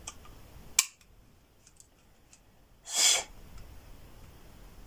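A sharp metallic click about a second in as the mechanism of a Type 87 knife-pistol is worked on a jammed last .22 Short round that won't fire; the shooter believes swelling cases stop the mechanism from moving. About three seconds in there is a brief hiss of noise.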